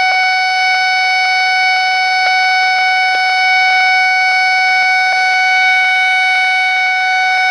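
AOR AR1000 wide-range scanner receiver sounding a steady, high buzzing tone from its speaker, with faint ticks about twice a second: the audio of a radio signal it is picking up.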